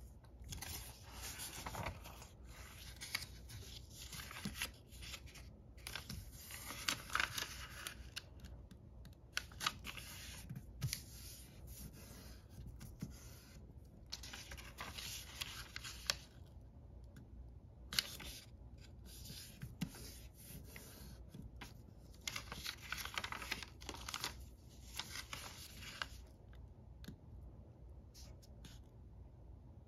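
A sheet of origami paper being handled and folded by hand: rustling and sliding of the paper, with sharper scrapes as fingers press the creases. It comes in bursts with short pauses between.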